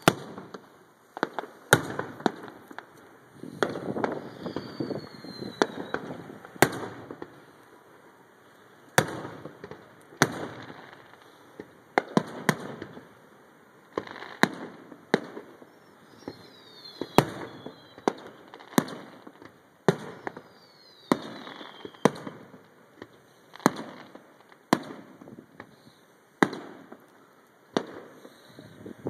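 Aerial firework shells bursting overhead: a string of sharp bangs at irregular spacing, about one a second, each trailed by a rolling rumble and echo, with a brief lull partway through. Now and then a short falling whistle sounds between the bangs.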